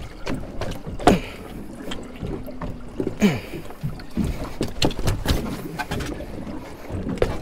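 Scattered knocks, thumps and rubbing on a fiberglass boat deck as a freshly gaffed, still-living cobia and the gaff are handled, with a couple of brief creaks.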